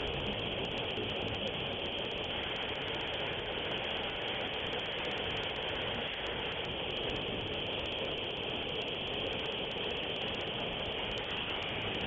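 Steady running noise of factory machinery, a constant mix of hum and hiss with no clear rhythm.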